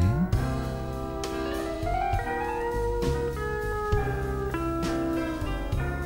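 Background film-score music: a slide guitar playing gliding notes over a bass line and light percussion.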